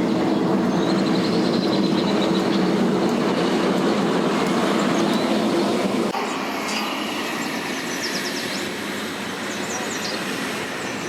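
A vehicle engine running steadily with a low hum, mixed with heavy wind noise. About six seconds in, the hum cuts off abruptly, leaving wind noise with a few short high chirps.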